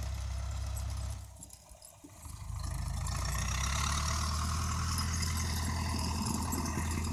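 Zetor 6945 tractor's diesel engine running steadily at low revs. It dips quieter about a second in, then comes back louder and stays steady.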